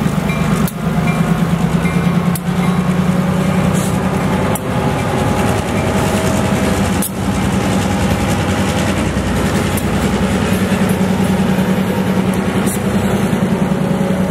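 Diesel freight locomotives and their train passing close by, with a steady low engine drone. Sharp clacks of wheels over rail joints come every couple of seconds in the first half.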